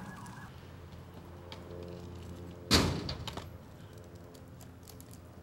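Stunt scooter on asphalt: a steady low rolling noise, and one sharp clack of the scooter hitting the ground a little under three seconds in.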